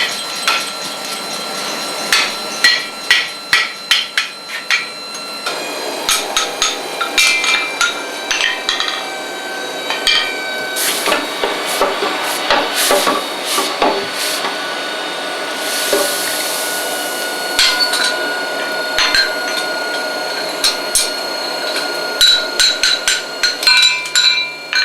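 Blacksmith's hand hammer striking hot wrought iron on an anvil in runs of quick blows, with the anvil ringing between them, forge-welding a mooring ring made from old chain.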